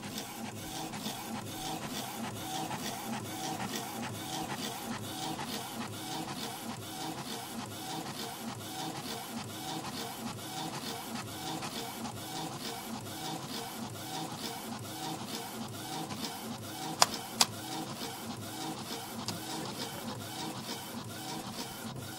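A machine running steadily with an even, rapid rhythm of about four beats a second. Two sharp clicks sound close together about three-quarters of the way through.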